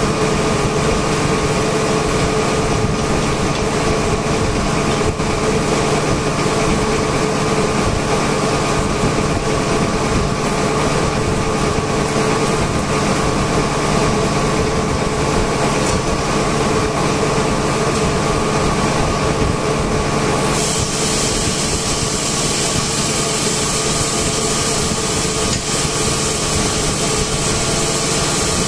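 Steady drone of running industrial air compressors, a constant hum with a whine above it; about two-thirds of the way through a steady high hiss joins in.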